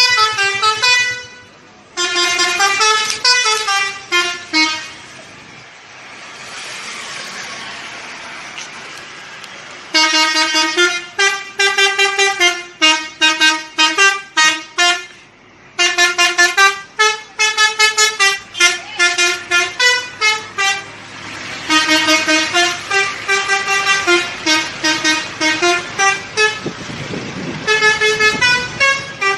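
Indonesian bus 'telolet' musical horn playing quick melodic runs of short notes, one tune after another, with brief pauses between them. Its notes stop for a few seconds near the middle, where only a rushing road noise is left, then start again.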